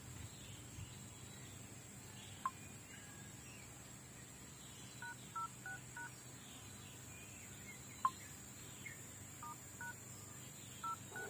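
Keypad tones from a Xiaomi Redmi 3 smartphone's dial pad as its touchscreen is tapped: short two-tone beeps, a run of four about halfway through, then two more, then another two near the end. Two sharp clicks, the loudest sounds, stand out, one early and one later on.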